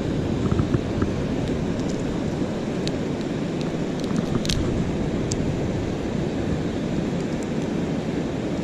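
Steady rushing roar of water pouring through the dam's tailrace below the spillway.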